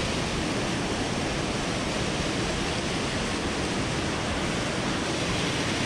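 Creek water rushing steadily, an even hiss with no breaks.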